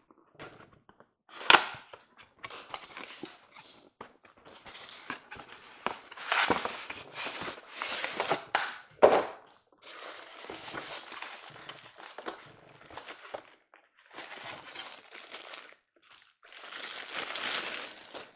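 Cardboard box and packing of a model train boxcar being opened by hand: rustling, crinkling and scraping, with sharp knocks about a second and a half in and again about nine seconds in.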